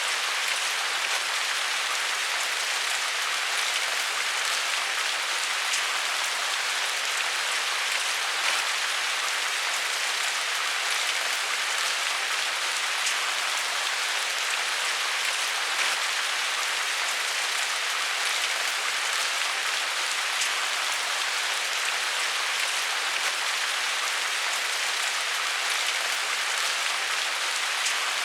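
Steady rain falling: an even hiss of rain with fine scattered drop ticks, unchanging throughout.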